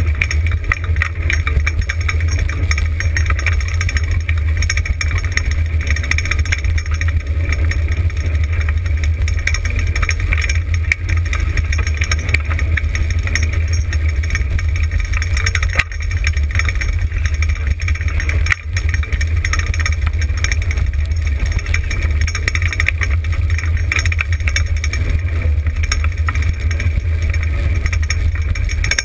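A dryland sled dog rig rolling fast over a dirt trail, rattling constantly, with heavy wind rumble on the mounted camera's microphone.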